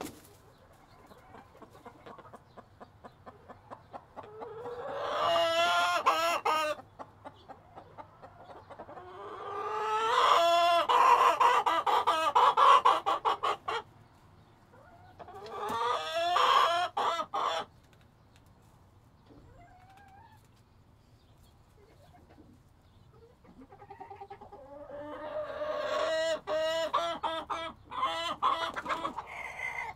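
Chicken clucking and cackling in four loud bouts of rapid, pulsed calls, with quieter pauses between them.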